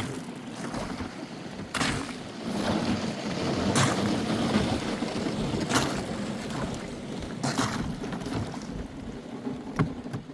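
Small boat moving through river water, a steady swishing, with a short sharp sound about every two seconds.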